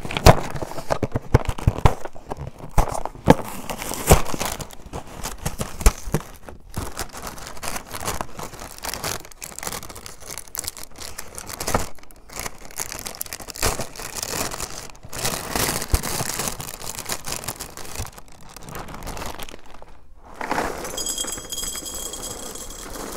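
Cereal box's inner bag crinkling and crackling as it is handled and torn open. About 20 seconds in, Cap'n Crunch's Christmas Crunch cereal is poured into a glass bowl, a steady rush of pieces with a faint high ringing from the glass.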